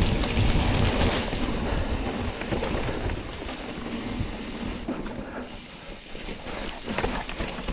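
Mountain bike rolling along a dirt singletrack trail: tyre noise and a run of small knocks and rattles from the bike over the ground. It is loudest at first and eases off over the last few seconds as the bike slows.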